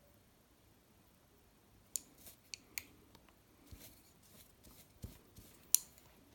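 Scattered light clicks and taps as an acrylic nail brush and tools are handled around a nail form, with a soft knock about five seconds in and the sharpest click just after.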